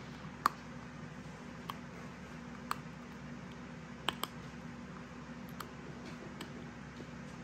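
Blue-and-gold macaw chewing a toy duck held in its foot: scattered sharp clicks of beak against the toy, about seven, irregularly spaced, over a steady low hum.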